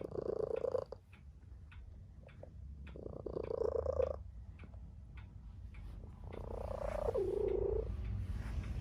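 Tabby cat meowing three times, each call about a second long, the last one dropping in pitch near its end. A light ticking runs underneath at about two ticks a second.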